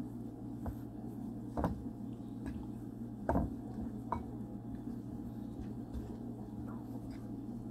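A metal fork mixing mashed boiled banana and flour into a dough in a bowl, with a few sharp clicks of the fork against the bowl in the first half, over a steady low hum.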